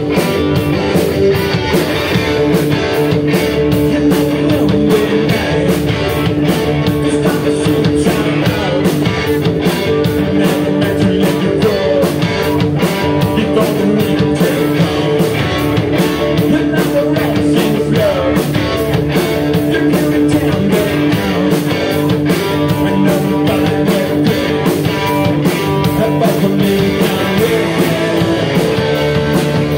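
Live rock band playing: two electric guitars, electric bass and a drum kit keeping a steady beat, with a lead singer's vocal.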